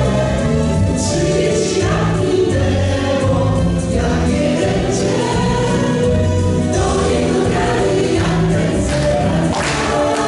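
A Polish-language pop song sung by a group of voices in chorus over an instrumental backing with a steady beat.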